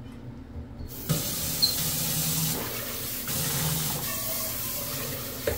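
Kitchen faucet turned on about a second in, then water running steadily from the tap into a cooking pot being rinsed in a stainless steel sink.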